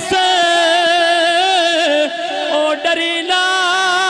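A man singing a naat into a handheld microphone, drawing out long held notes with a slight waver in pitch. The line breaks briefly about two seconds in.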